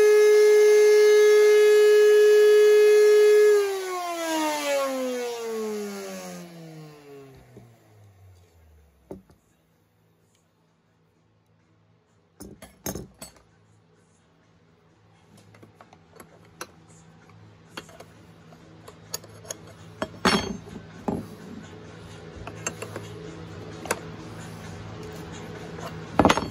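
Porter-Cable 690 router spinning a Musclechuck that is not fully seated, giving an extremely loud, steady high whine with many overtones. The whine is switched off about three and a half seconds in and falls steadily in pitch as the router spins down over about five seconds. After a pause come scattered metal clinks and knocks of a wrench and hands on the router and chuck.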